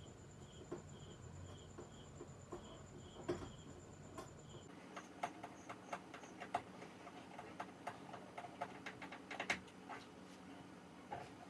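Faint, scattered light clicks and taps of hands handling small items during shelf installation, coming thick and fast in the second half. A faint high chirp repeats about twice a second in the first few seconds.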